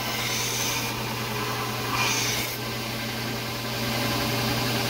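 Bench belt sander running with a steady motor hum while a wooden knife handle is ground against the abrasive belt, the sanding hiss growing louder twice, about half a second in and again about two seconds in.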